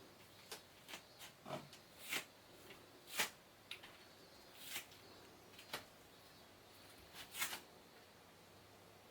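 Faint, irregular taps and scratches, about a dozen over several seconds: a kitten's paws and claws on surfaces as it moves about and plays.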